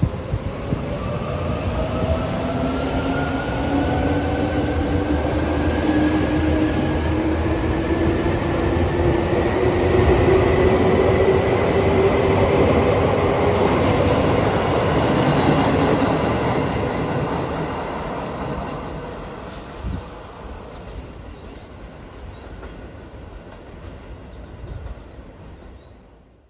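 Seibu 2000 series electric train pulling away from the platform, its motor whine rising steadily in pitch as it gathers speed, with wheels running on the rails. It is loudest as the cars pass close by, then fades as the train leaves.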